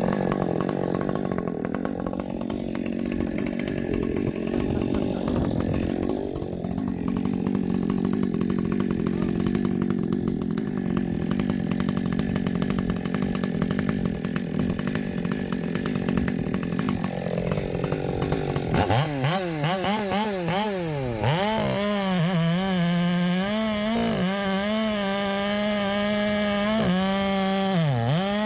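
Husqvarna 564xp chainsaw cutting wood under load, its engine pitch sagging as it is pushed into the cut. About two-thirds of the way through it clears the cut and runs at high revs with a cleaner tone, the pitch dipping a few times.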